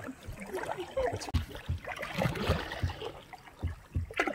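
Water trickling and lapping against a plastic kayak's hull, with a few soft low bumps scattered through.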